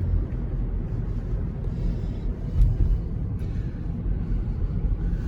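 Low road and engine rumble inside a moving car, with a couple of brief knocks about halfway through.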